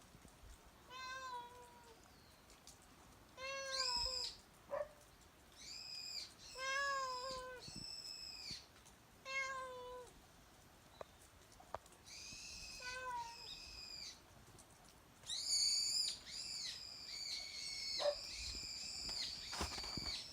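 A stray cat meowing repeatedly: short meows that rise then fall, one every second or two. Several higher-pitched calls overlap near the end.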